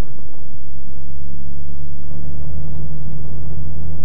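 Land Rover's engine running steadily as the vehicle drives, heard from inside the cab as an even low hum.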